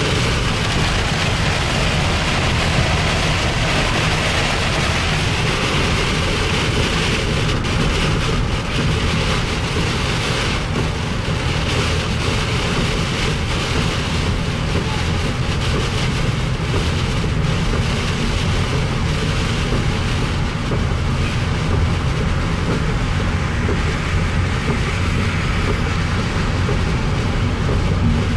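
Heavy rain and hail pelting a moving car's roof and windshield, heard from inside the cabin over steady tyre and road noise at highway speed. The noise is dense and unbroken, with scattered sharper hits in the middle stretch.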